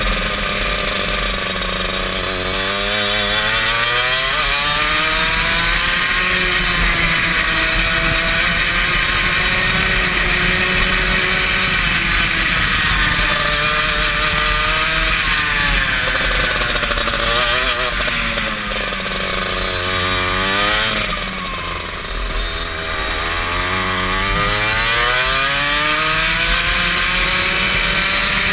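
Go-kart engine heard from onboard while lapping a circuit, its revs climbing and falling every few seconds as it pulls down the straights and slows for the bends. About three-quarters of the way through the revs and loudness drop lower and longer before climbing again.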